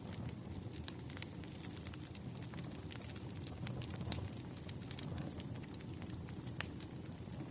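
Wood fire burning: a steady low rumble and hiss with frequent irregular crackles and pops, two sharper pops standing out about four seconds in and near the end.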